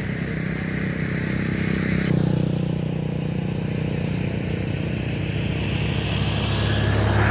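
Motor vehicle engine running steadily on the road, with traffic noise, growing louder near the end.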